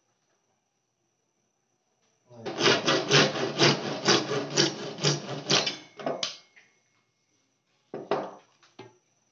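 A hand tool rasping back and forth on a blue PVC pipe resting on a wooden board: quick, even strokes, about four or five a second, for some four seconds. Near the end comes a short scrape and a light knock as the pipe is moved.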